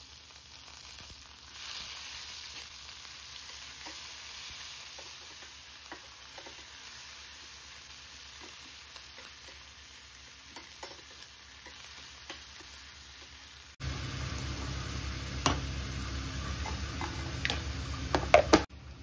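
Chopped onions and spices sizzling in hot oil in a steel pan, stirred with a spatula. About fourteen seconds in, the sizzle gives way to a low steady hum with several sharp clinks near the end.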